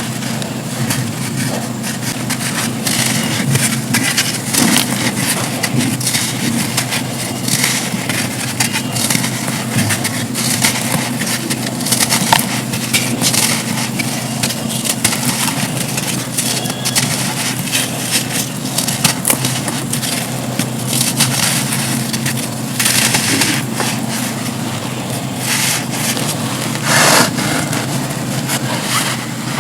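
Dry black sand slabs being crumbled and crushed, a dense, continuous run of crisp crackling and crunching over a steady low hum.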